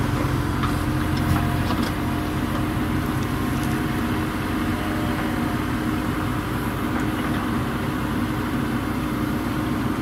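JCB 3DX backhoe loader's diesel engine running steadily, its deepest tones easing off about two seconds in.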